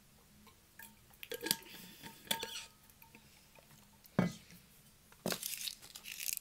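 Hands handling small hard objects on a floor: a run of clicks and light clinks with a brief ring, a single thump about four seconds in, then rustling near the end.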